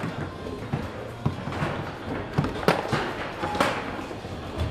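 Foosball table in play: the ball and the players' figures and rods knocking and clacking, several sharp hits at uneven intervals, the two loudest past the middle.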